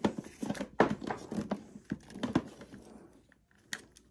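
Tangled electrical cords and their plastic plugs rustling and clacking as they are pulled out of a plastic bin: a run of irregular light clicks and knocks that dies away after about three seconds, with one more click near the end.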